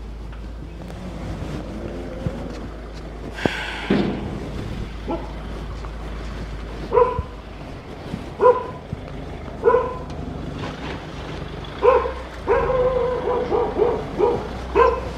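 A dog barking: single barks a second or so apart from about halfway through, then a quicker run of barks near the end.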